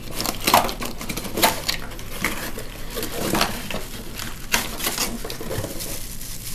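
Hands rummaging in a cardboard box and handling plastic parts: irregular clicks and knocks with rustling between them, the sharpest click about half a second in.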